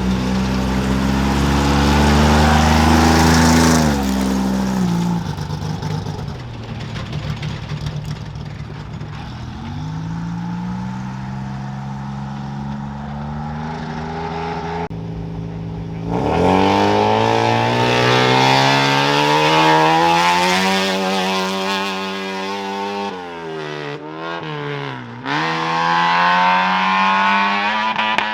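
Off-road race vehicles launching from the start line one after another, each engine revving and climbing in pitch through its gears as it pulls away. The loudest launches come at the start and suddenly about sixteen seconds in, with quick dips in pitch from gear changes near the end.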